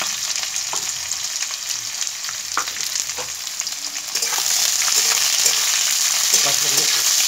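Sliced onions sizzling in hot mustard oil in a kadhai, a steady crackling hiss. From about four seconds in a spatula stirs them against the pan, and the sizzle grows louder.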